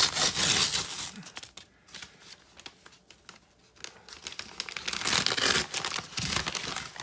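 A brown paper mailer envelope being torn open and its contents pulled out, a rustling and tearing of paper in two bouts with a quieter lull between.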